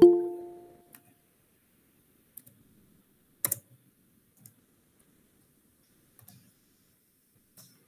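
A video-meeting app's notification chime rings and dies away at the start, then scattered computer keyboard key presses follow as code is typed, the loudest a quick double click about halfway through.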